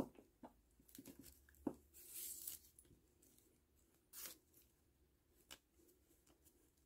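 Faint handling sounds of string being pulled and knotted through plastic pony beads: soft bead clicks and short scraping rasps of the cord, the longest about two seconds in and another about four seconds in.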